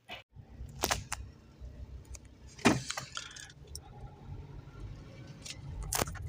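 Low running rumble of a car heard from inside the cabin, with a few sharp clicks or knocks about a second in, near the middle and near the end.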